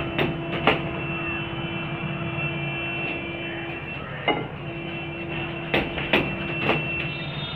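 Scattered sharp knocks and taps, about six at irregular intervals, from hand work fitting PVC electrical conduit pipes among steel rebar. Underneath is a steady hum and a held tone that breaks off briefly past the middle.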